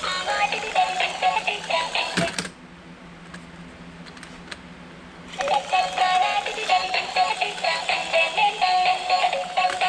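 Dancing robot toy's built-in speaker playing an electronic song with a synthesized singing voice. A couple of seconds in, the music stops after a click, stays off for about three seconds with only faint clicks, then starts again.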